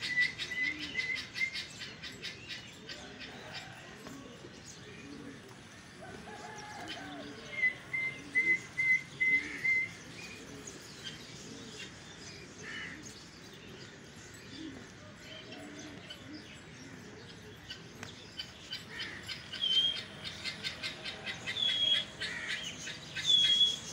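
Birds chirping in quick runs of short high notes: once at the start, again around eight seconds in, and higher-pitched ones near the end. Underneath are low pigeon coos and wing flapping.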